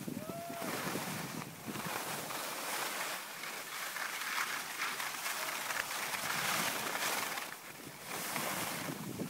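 Skis sliding over packed snow, with wind rushing on the microphone: a steady hiss that drops away briefly twice.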